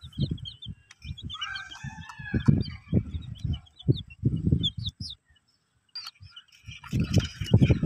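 Baby chicks peeping in short, high, repeated cheeps over a run of loud, dull low thumps. The sound cuts out briefly about five seconds in.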